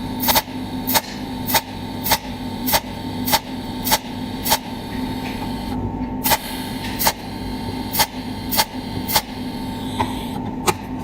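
Cold welding machine firing a regular train of sharp snapping pulses, about one every 0.6 s with a short pause about six seconds in, over a steady electrical hum.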